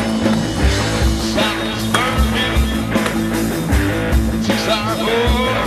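Rock music soundtrack with guitar over a steady drum beat.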